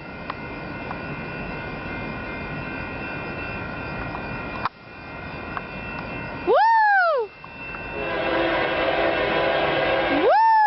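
A Caltrain local commuter train running through the station. From about eight seconds in, a steady chord of several tones swells up from the train. A man gives two loud, high "woo!" whoops that rise and fall in pitch, one past the middle and one at the end.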